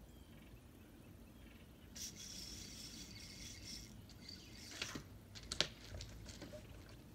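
Fishing reel cranked in a whirring run of about two seconds, then several sharp clicks and taps, the loudest near the end, as a hooked crappie is brought in.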